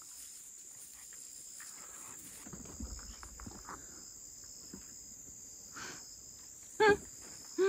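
Insects, cricket-like, keeping up a steady high-pitched trill, with faint rustling and small clicks beneath it. Near the end a brief voice sounds once.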